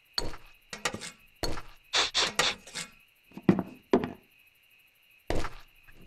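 Cartoon sound effects of plums being spooned from a tray into ceramic mugs: a quick run of short knocks and plops, a brief pause, then one last knock near the end.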